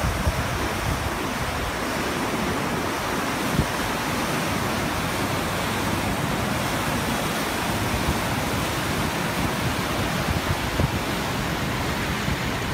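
Fast, swollen river in flood rushing past in a steady wash of water noise, with wind buffeting the microphone in a low, uneven rumble.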